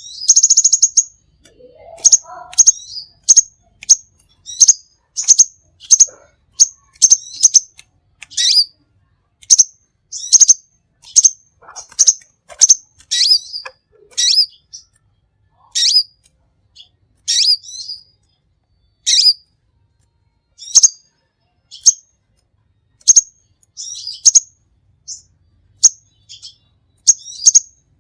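A small songbird giving short, sharp, high chirps, one every half-second to a second, with a quick rattling trill at the start.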